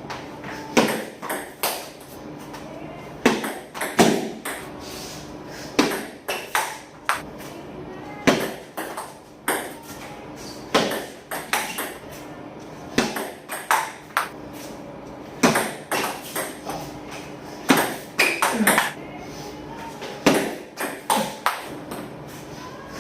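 Table tennis counter-hitting rally: the celluloid ball cracking off rackets and bouncing on the table, a sharp click every fraction of a second in quick, irregular runs.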